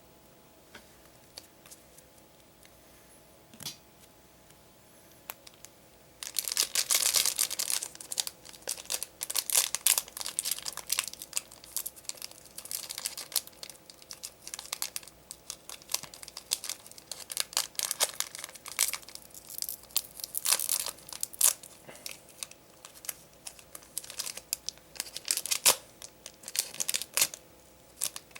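A foil trading-card booster pack being torn open and handled, its wrapper crinkling and crackling steadily; the first six seconds are near quiet with a few faint clicks before the tearing starts.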